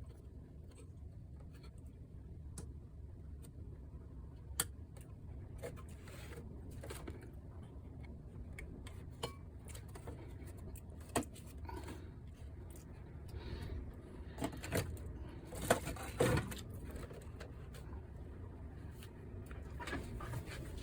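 Scattered clicks and light knocks from handling the plastic casing and parts of a PlayStation 5 during disassembly, over a low steady hum, with a busier run of knocks about fifteen seconds in.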